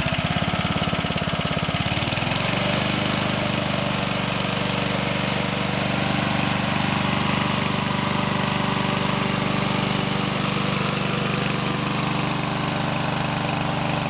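Honda HR195 lawn mower's single-cylinder four-stroke engine running. It picks up speed about two seconds in, then runs smoothly and steadily.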